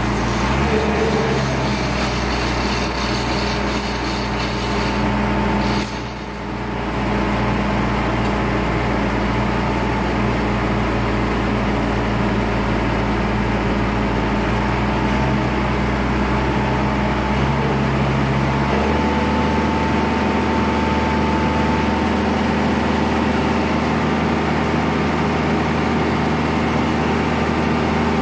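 Crane engine running steadily while hoisting a heavy diesel power pack on its wire rope, its engine note shifting about a second in and again about two-thirds of the way through.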